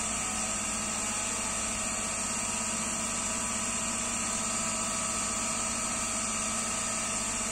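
A 15 W diode laser engraver on a CNC 3018 frame running steadily through a slow etching pass on steel: an even machine hum with a thin high whine.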